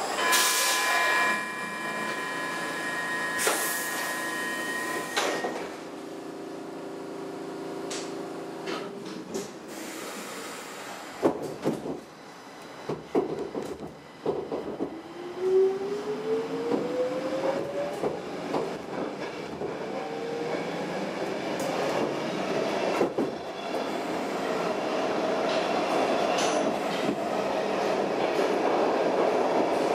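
Stockholm Metro C6 subway car departing a station. A steady high tone sounds for about the first five seconds, a few knocks come around 11 to 13 seconds in as the doors shut, then the traction motors whine upward in pitch as the car accelerates. Wheel and running noise builds louder toward the end.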